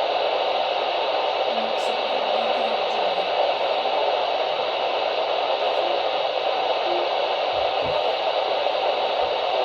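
Steady radio static: an even hiss from a receiver tuned to a weak or empty signal, with no programme audio coming through.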